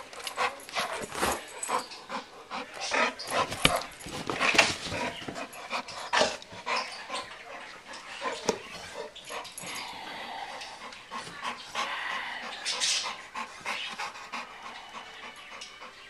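Dogue de Bordeaux panting, with irregular rustles and knocks as it moves about close to the microphone.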